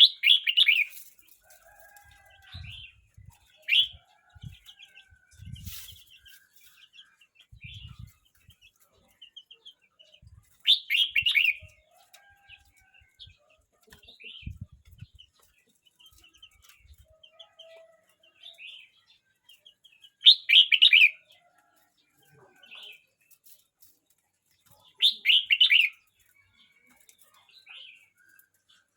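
Young red-whiskered bulbul singing: four loud, short song phrases several seconds apart, with softer chirps between them and scattered low thumps in the first half.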